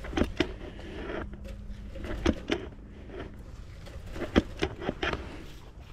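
Scattered sharp metal knocks and clunks from a large rusty gear on an old abandoned machine being worked by hand, several in quick pairs.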